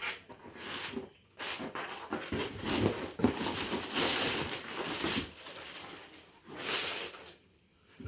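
Irregular rustling and scraping of a cardboard box and its packing as an airsoft rifle is put back into it, in several bursts with short pauses.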